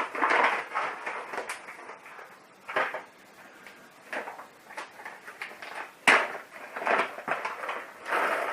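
Scattered knocks and clatters of coffee gear being handled on a kitchen worktop, with one sharp knock about six seconds in and some rustling near the end.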